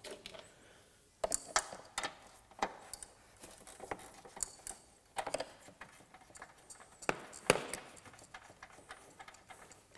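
Irregular small clicks and metallic taps of hand tools and wiring being handled under a car bonnet while the 10 mm earth nut on the body is undone.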